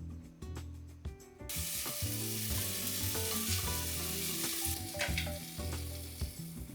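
Food sizzling in a hot frying pan. It starts suddenly about a second and a half in and dies down around five seconds, over background music.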